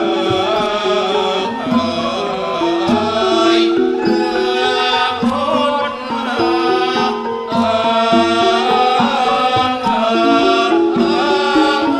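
Traditional Thai ensemble music with mallet percussion and hand drums, playing steadily.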